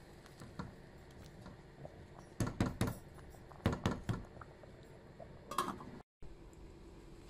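A spoon stirring a stainless-steel pan of tomatoes stewing in their own juice, scraping and knocking against the pan in short clusters about two and a half and four seconds in, and once more near the end.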